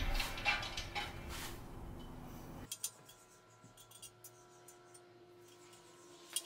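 Hot 10-series Damascus steel blade quenched in a tall tank of Parks 50 quench oil, held in tongs: a run of light metallic clinks and crackle that dies away after about two and a half seconds, leaving only a few faint ticks.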